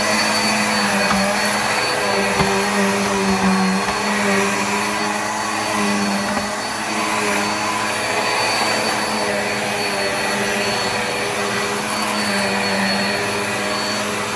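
Black + Decker Air Swivel upright vacuum running steadily while being pushed across the floor, its motor hum swelling and easing every second or two, with a few faint clicks of debris being picked up.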